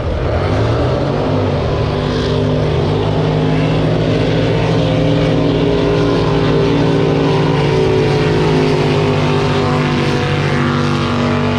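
A racing drag boat's engine running hard. Its pitch climbs in the first second, then holds at a high, steady note.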